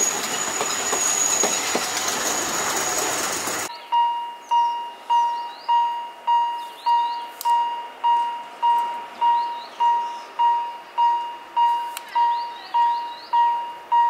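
A small Alishan Forest Railway train rolls past close by with a high, steady wheel squeal, until a sudden cut about four seconds in. Then a level-crossing warning signal rings a single clear tone, a little under twice a second, with birds chirping.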